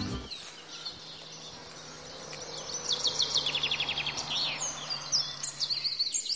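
Birdsong: short, high chirps and a quick trill of repeated notes, growing busier after about two seconds, over a faint steady low hum.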